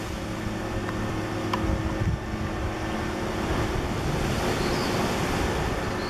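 Steady low rumbling background noise with a faint steady hum, and two faint ticks about a second in.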